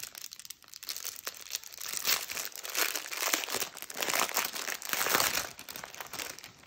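A paper sheet from a diamond-painting kit crinkling and rustling as it is handled and unfolded, in irregular crackles that are loudest in the middle.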